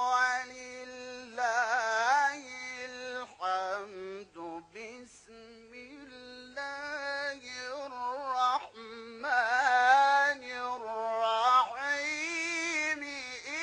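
A man reciting the Quran in the melodic tajwid style, solo and unaccompanied. He sings long held notes with wavering, ornamented turns, in several phrases with short breaks between them.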